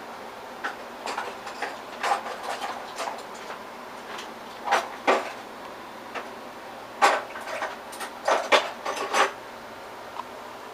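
Small metal computer parts, screws and motherboard standoffs, clinking and rattling as they are sorted through by hand in a parts box, in scattered clusters of clicks with quieter gaps between.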